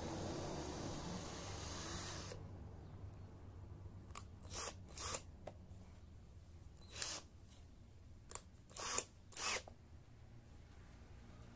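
Short scraping, rasping sounds of hand-tool work on a cordless impact wrench's housing, about seven brief strokes spread over several seconds. A steady background noise stops about two seconds in.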